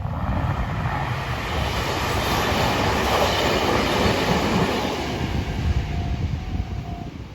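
A Meitetsu electric commuter train passing close by through a level crossing, its wheels rumbling and clacking over the rail joints. It is loudest in the middle and fades away near the end.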